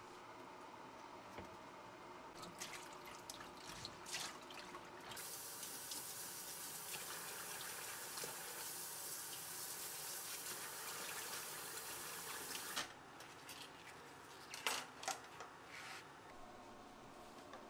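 Water splashing as dishcloths are handled in a sink, then a kitchen tap running steadily for about eight seconds while they are rinsed. Near the end, a few sharp knocks and clicks.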